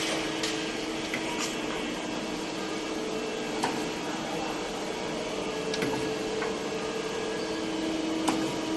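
Nicco NSG-64H surface grinder running with a steady mechanical hum, with a few sharp clicks scattered through it.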